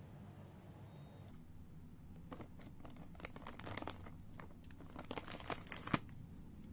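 Irregular crinkling and rustling with small crackling clicks, starting about two seconds in, with one sharper click near the end.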